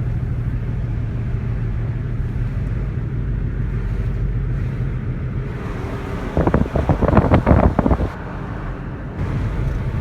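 Steady low rumble of a car driving. A little past the middle there is a louder, choppy burst of noise for about two seconds.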